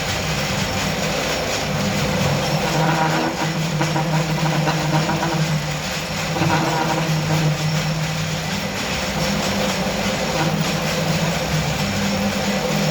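Loud, steady running noise of a large vehicle, a continuous rumble with a low drone throughout.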